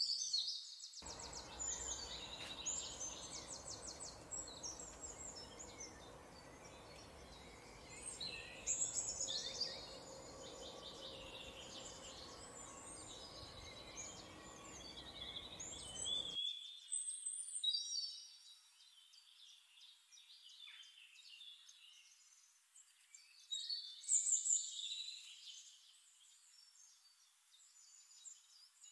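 Small birds chirping and singing in quick trills, in bursts, loudest at the start, around a third of the way in, and again near the end. A steady background hiss runs underneath and cuts off abruptly a little past halfway.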